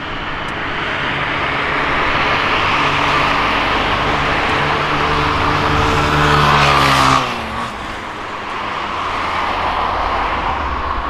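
A road vehicle passing close by: its engine sound builds for several seconds, then drops sharply in pitch as it goes past about seven seconds in, with steady traffic noise behind.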